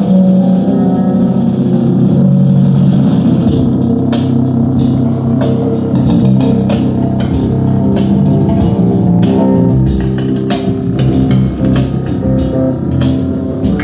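Rock music with electric guitar, bass and a drum kit, the drums coming in about three and a half seconds in with a steady beat.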